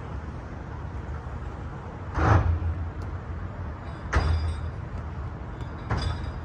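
Steady low wind rumble on the microphone, with three short, louder noises about two seconds apart.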